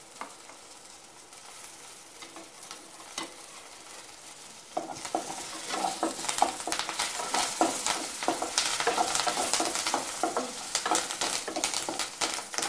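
Small onions and curry leaves sizzling in hot oil in a nonstick pan. About five seconds in, a spatula starts stirring them, adding quick scraping and clicking over a louder sizzle.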